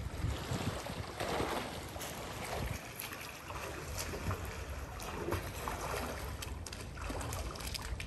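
Water splashing from a person swimming in a pool, over wind rumbling on the microphone.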